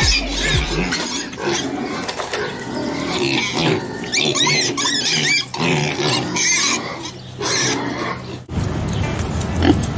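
Piglets grunting and squealing while they jostle at their feed, with a run of high squeals between about four and seven seconds in. Near the end the sound changes abruptly to a steadier background noise.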